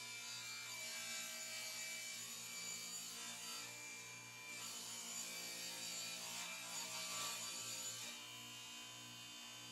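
Table saw with its blade tilted to 45 degrees ripping a bevel along a length of painted baseboard: a steady motor hum under the rasp of the blade in the wood. The cutting noise eases about eight seconds in as the saw runs on free.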